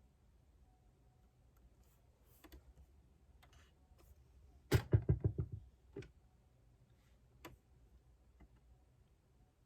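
A quick burst of about eight keystrokes on a computer keyboard in under a second, about halfway through, with a desk thud under it. Scattered single key clicks and small desk sounds fall before and after.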